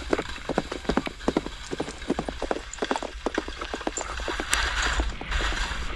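A horse's hooves striking a packed snow track in a fast, even run of hoofbeats, about five a second, as it pulls a skier. A steady hiss comes in over them near the end.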